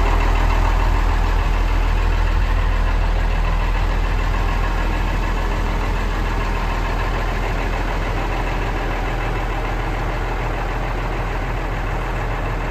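Diesel engine of a 1991 Ford L8000 truck idling steadily, growing slightly fainter over the stretch.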